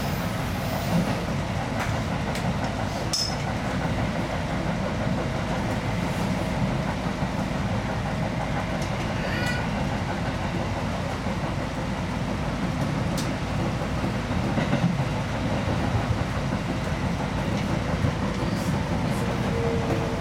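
Seibu 2000 series electric train running on plain track, heard from inside the front cab: a steady rumble of wheels on rails with a few sharp clicks and a brief high-pitched squeal about halfway through.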